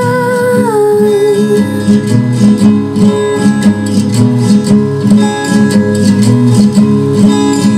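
Pop song played loud through a power amplifier and column speaker for a sound check: a held note ends within the first second, then plucked and strummed guitar with a steady beat.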